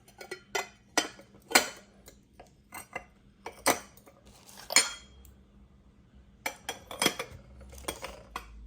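Glass teapot parts clinking and knocking as they are handled, a series of separate sharp clinks and taps.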